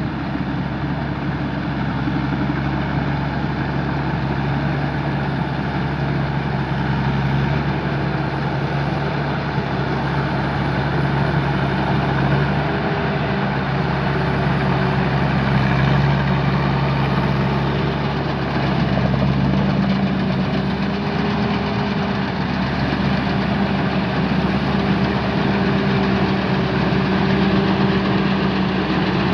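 Tamco combine harvester's Isuzu 6HK1 six-cylinder diesel engine running steadily, with a dense mechanical hum from the machine. The engine note shifts slightly a couple of times.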